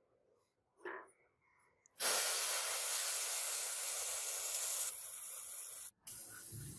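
A loud, steady hiss starting about two seconds in and lasting about three seconds, fading a little before it cuts off suddenly. A second, shorter hiss from an aerosol spray can follows near the end.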